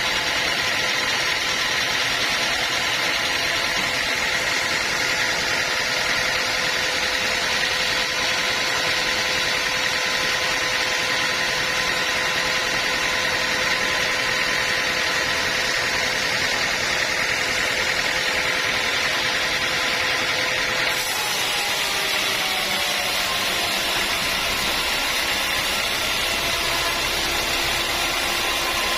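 Sawmill machinery running steadily: a continuous mechanical noise with a high, even whine. About two-thirds of the way through, the sound changes abruptly to a slightly different steady pitch, with a short sliding tone.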